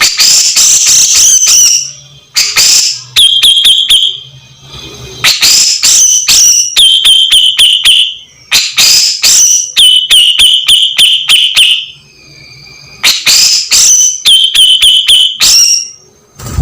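Grey-cheeked bulbul (cucak jenggot) calling loudly in repeated bursts: each burst is a rapid run of harsh chattering notes that ends in a buzzy trill held for about a second, with high whistled notes mixed in.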